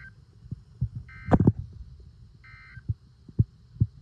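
Dull low thumps at irregular intervals, about six of them, with two short electronic beeps about one and two and a half seconds in.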